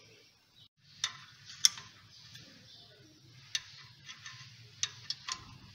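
Sharp metallic clicks, about six at irregular intervals, as a 12 mm spanner works the bolt of the adjuster pulley to tension a car's AC compressor belt. The loudest click comes a little over a second and a half in.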